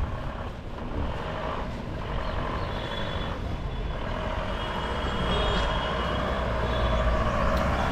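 Motor vehicle engine running on the road, a steady low rumble that grows gradually louder.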